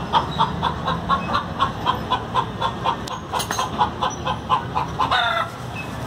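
A hen clucking in a quick, even series of about four clucks a second, ending about five seconds in with a short call that rises in pitch.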